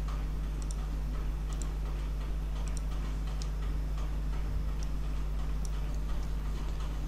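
Steady low hum with faint, irregular clicks of a computer mouse, about one a second.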